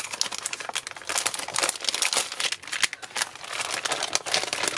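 Plastic crinkling and rustling as a pack of roll-up vacuum storage bags is opened and the clear plastic bags are pulled out and handled, with many irregular sharp crackles.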